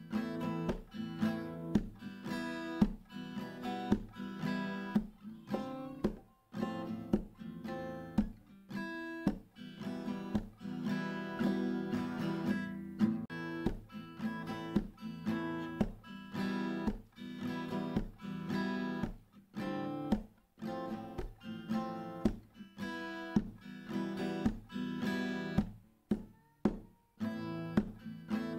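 Background music: acoustic guitar picked and strummed in a steady rhythm.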